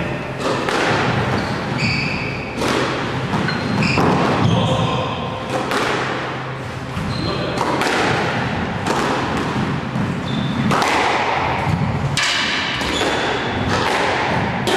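Squash rally: the hard rubber ball struck by rackets and hitting the court walls, a sharp knock about every second, with short high squeaks of players' shoes on the court floor between the shots.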